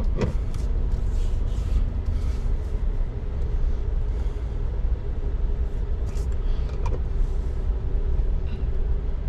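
Chevrolet Silverado Trail Boss pickup rolling slowly along a dirt forest trail: a steady low rumble of engine and tyres, with a few light knocks near the start and about seven seconds in.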